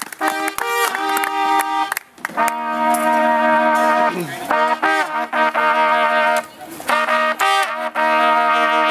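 Trombones playing long held notes together in a loose street-band style. About four seconds in, one slides down in pitch.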